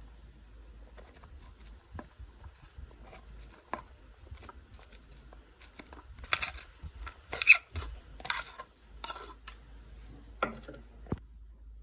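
Clinks and scrapes of kitchenware as chopped onions are added to a salad bowl. Scattered light clicks at first, a busier run of louder scrapes a little past the middle, and two sharp clicks near the end.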